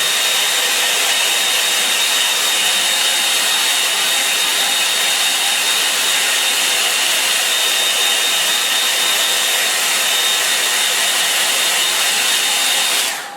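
Hair dryer blowing steadily with a thin high whine, drying a wet watercolour painting, then switched off near the end.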